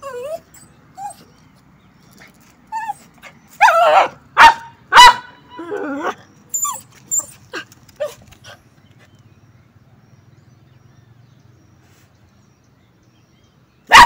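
A small dog barking and whining in short bursts, loudest a few seconds in, then quiet for several seconds before one sudden loud bark near the end as the fluffy white dog lunges at the cat.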